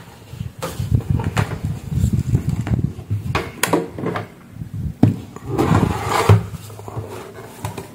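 Hard plastic clicks and knocks with low scraping rumbles as a Ninja blender's jar is twisted off its motor base and the base is picked up and turned over. Several sharp clicks stand out in the middle and later part.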